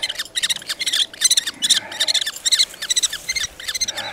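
Common kestrels calling: a rapid, unbroken series of sharp, high-pitched repeated notes, several a second.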